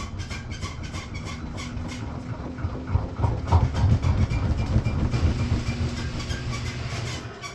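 Washing machine making an odd noise: a rapid, regular clicking, about five clicks a second, gives way after a couple of seconds to a louder rumbling with irregular knocks, which dies down at the very end.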